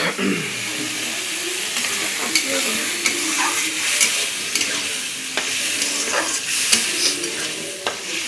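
Spice paste with potatoes and onions sizzling as it fries in a kadai, with a spatula scraping and clicking against the pan as it is stirred.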